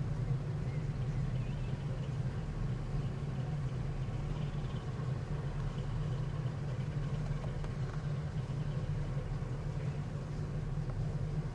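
Steady low rumble of the heavy-lift cargo ship Jumbo Challenger's engines as it gets under way.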